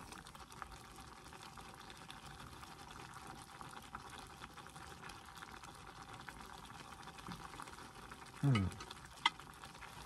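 One-pot pasta simmering and sizzling in a pan of tomato and canned-mackerel sauce as the liquid cooks down, with a utensil stirring it. A brief voice sounds near the end, followed by a sharp click.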